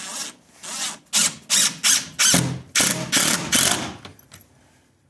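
Cordless impact driver running in a series of short trigger bursts, about eight of them, as it drives a long 4-inch screw through a steel security strike plate into a wooden door frame. It stops a little after four seconds in.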